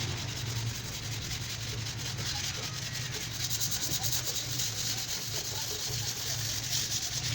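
Sanding on a car's body panel: a steady scraping that grows louder and brighter about three and a half seconds in and eases again near the end, over a low steady hum.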